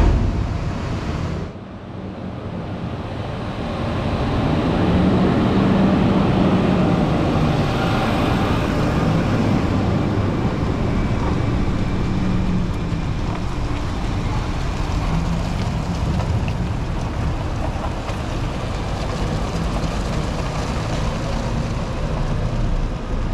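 A vehicle engine running steadily with a continuous low hum and rushing noise, briefly cut off about a second and a half in, then returning.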